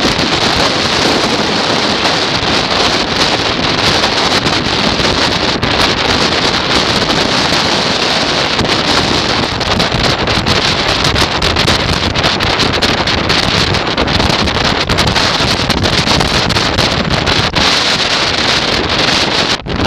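Gale-force wind buffeting the microphone over storm waves breaking on the lakeshore, a loud, steady rush of noise without let-up.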